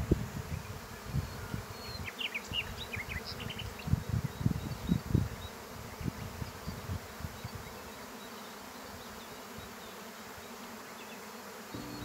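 A swarm of honeybees flying and buzzing in the open air just after leaving the hive, with irregular low thumps of wind on the microphone in the first half and a few short high chirps a couple of seconds in.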